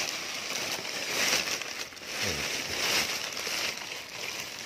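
Dry leaves and brush rustling and crunching, swelling and fading several times, as someone pushes through a trampled banana clump on foot. A short voice sound about two seconds in.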